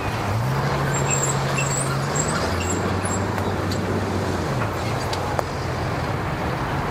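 Bass boat outboard motor running in gear to power-load the boat onto its trailer, its propeller churning the water into a rushing wash. The engine pitch rises about half a second in, drops about two and a half seconds in, and climbs again a couple of seconds later.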